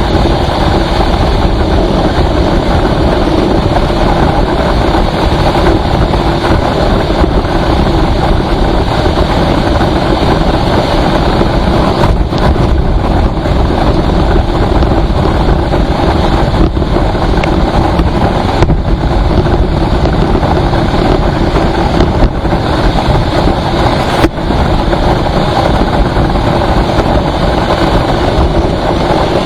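Steady engine and road noise of a vehicle driving on the highway, with a few brief knocks in the second half.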